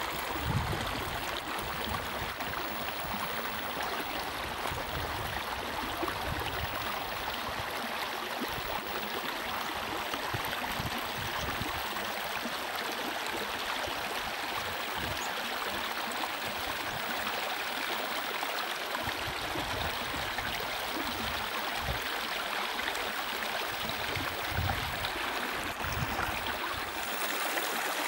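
Shallow moorland stream running steadily over stones, with gusts of wind buffeting the microphone.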